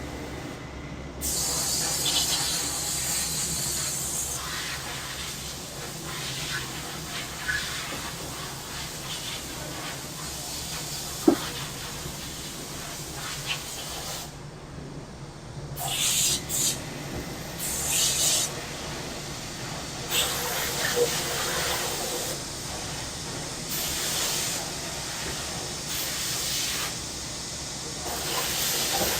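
Cicadas buzzing in a high, hissing drone that cuts out for a moment and comes back in several surges, over a low steady hum. A single sharp click sounds about eleven seconds in.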